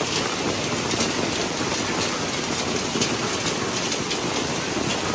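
Rain and hail falling hard: a steady dense patter with many small sharp hits on the pavement and on metal café tables.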